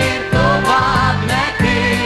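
Instrumental passage of a 1970s pop song between the lead vocal lines: the band plays a steady beat with a bouncing bass line about three notes a second and a wavering melody line on top.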